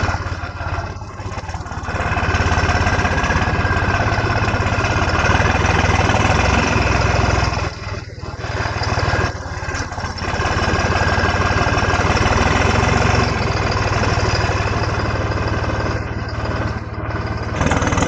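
Tractor diesel engine running steadily under way, dropping back briefly a few times (about a second in, twice around eight to ten seconds in, and near the end) before picking up again.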